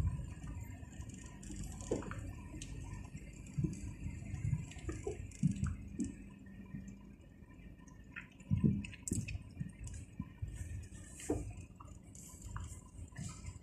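Car driving along a town street, heard from inside the cabin: a low rumble with small clicks and knocks scattered through it.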